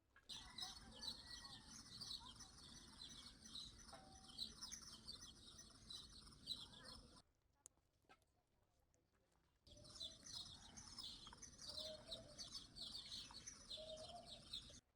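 Many small birds chirping together in a dense, busy chorus. It comes in two stretches of several seconds each, and each starts and stops abruptly.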